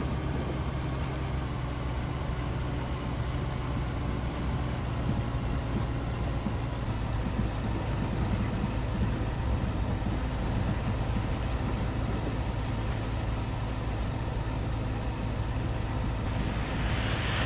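Steady road and engine noise inside a car cruising at motorway speed, a low drone under an even hiss, with a brief rise in hissing near the end.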